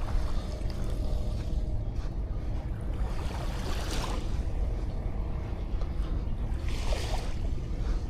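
Small sea waves washing up on a sandy beach, two surges of foamy hiss, one from about three seconds in and another near the end, over a steady low rumble.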